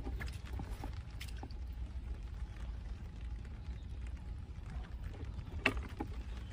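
A hand patting and slapping on wet concrete and wooden boards: scattered light taps and one sharp slap about five and a half seconds in, over a steady low rumble.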